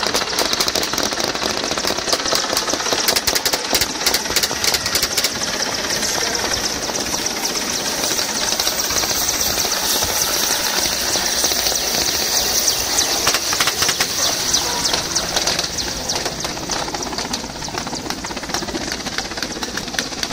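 Large Mil Mi-8-family transport helicopter hovering low and setting down close by: the main rotor's rapid, even thudding over a steady high turbine whine.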